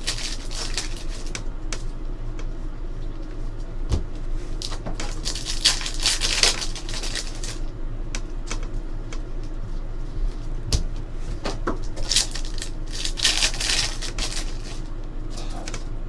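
Trading cards being handled: repeated soft swishes of cards sliding against each other as packs are opened and sorted, with a few light knocks on the table.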